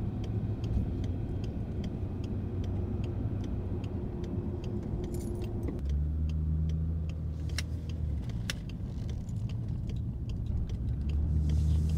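Ford Barra turbocharged straight-six and 4-inch exhaust heard from inside the cabin while cruising with the VAREX muffler valve closed: a quiet, steady low hum over road noise, not droney. About halfway through the low engine note deepens and grows louder, with light clicks throughout.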